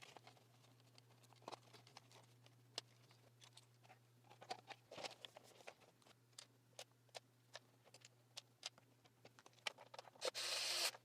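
Scattered small clicks and taps of plastic housing parts and screws being handled as a dust-mite vacuum cleaner is put back together. Near the end a small motor whirs briefly, about a second long.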